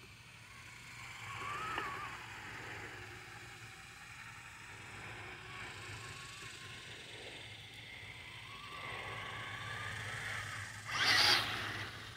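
Traxxas TRX4 Sport RC crawler's electric motor and drivetrain whining, rising and falling with the throttle, then a loud splash about eleven seconds in as the truck drives into shallow water.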